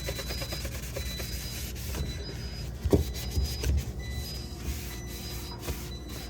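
Rubbing and scraping of a cloth or sponge scrubbing the inside of a refrigerator, with a knock about three seconds in.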